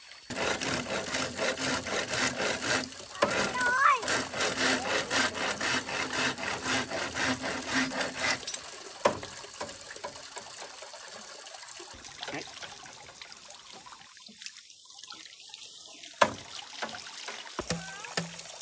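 Rhythmic rasping strokes at about three a second, like sawing or scraping by hand, running for about eight seconds. They give way to quieter handling noises, with one sharp knock about sixteen seconds in.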